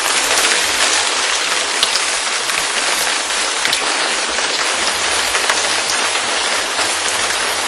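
Steady heavy rain: an even hiss of falling rain with scattered drop ticks, beginning to fade out near the end.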